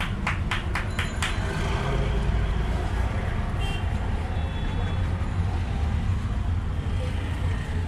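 Steady low rumble of street traffic, with a quick run of about six crisp knife cuts through a cucumber in the first second and a half.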